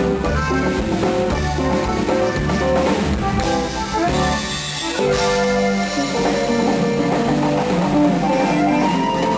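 A band playing guitar-led music, with drums in the mix, and no singing.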